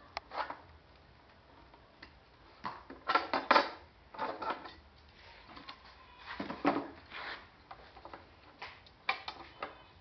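A wooden cabinet box being handled and worked on a bench: irregular knocks, clunks and scrapes of wood on wood. The loudest cluster comes a little over three seconds in, with more about six and a half seconds in and near nine seconds.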